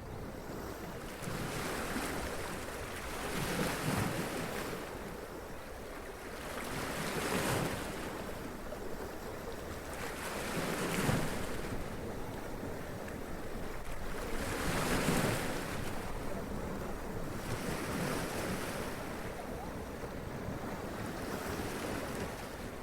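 Sea waves breaking and washing up over rocks, the splashing rising and falling every few seconds as each wave comes in.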